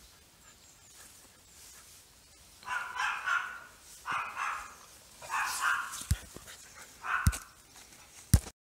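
Greater Swiss Mountain Dog puppy barking: four short barks, a second or so apart, starting about three seconds in. A few sharp knocks come near the end, the last the loudest.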